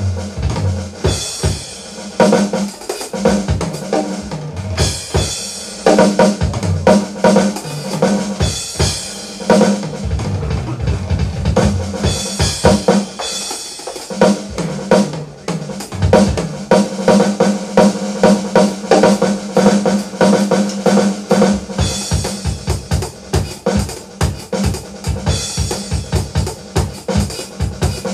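Roland V-Drums electronic drum kit played fast and busy through the sound system: rapid strikes on snare, toms and kick drum, with repeated cymbal crashes.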